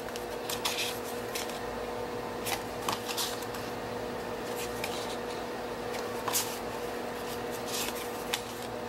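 Stack of printed paper 3x4 journaling cards being flipped through by hand, each card slid off the front of the pile with a short papery swish, irregularly every second or two. A faint steady hum runs underneath.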